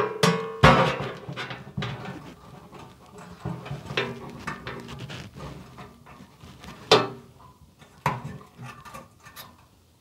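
Metallic clinks, taps and scraping as wires and a soldering iron are worked against LED pins inside a sheet-metal UPS case, with the loudest knocks near the start and about seven seconds in.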